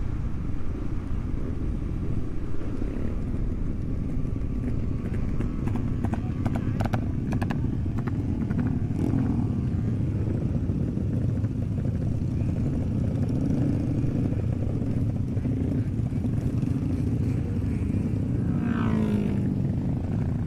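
Supermoto motorcycle being ridden, its engine running steadily, with a run of short clicks about six seconds in. Near the end a pitched sound drops sharply in pitch.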